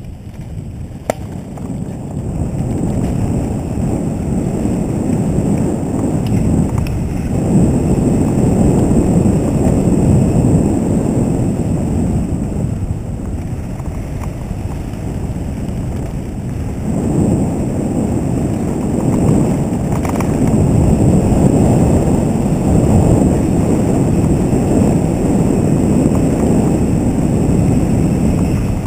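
Wind buffeting the microphone of a bike-mounted camera on a mountain bike running fast down a dirt trail, mixed with tyre and bike rattle over the ground. The rush swells louder about 7 seconds in and again about 17 seconds in, with a single sharp tick about a second in.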